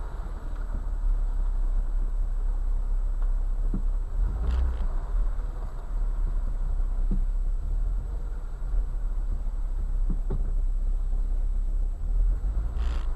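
Off-road vehicle driving slowly over a sandy, gravelly track, with a steady low rumble of engine and tyres and a few brief knocks as it rolls over bumps.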